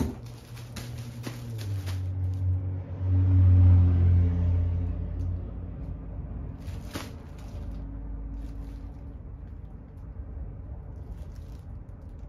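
Crinkling of a plastic bag around a garment as it is handled, in short spells at the start, about seven seconds in and near the end. A low rumble swells about two seconds in and dies away by about five seconds, and is the loudest sound.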